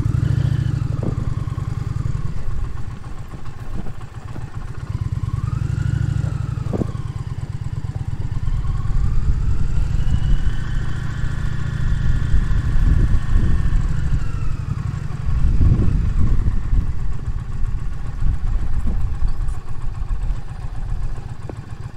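Indian Challenger motorcycle's V-twin engine running at low speed, swelling and easing off several times with the throttle, with a few short knocks.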